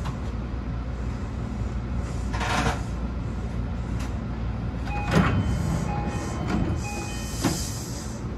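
BEC819 series battery-electric train heard from the cab, a steady low rumble. Sharp knocks come about two and a half, five, six and a half and seven and a half seconds in, and a few short high beeps sound near the middle to late part.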